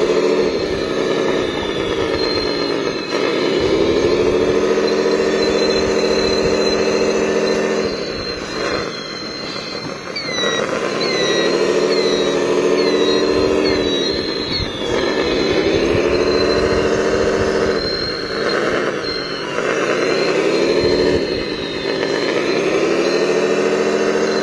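Steady whine of radio-controlled hydraulic construction models (wheel loader and excavator), the pitch sagging and climbing back every few seconds as the loader digs and lifts.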